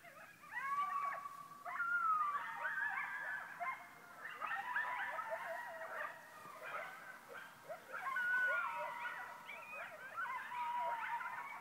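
A pack of coyotes howling and yipping together, many voices overlapping with long held wails and short quick rising and falling calls, coming from several directions at once.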